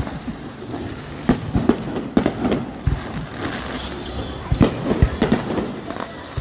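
Fireworks going off: a quick, irregular string of bangs and pops, several close together at times, with the loudest bangs about two seconds in and again around five seconds.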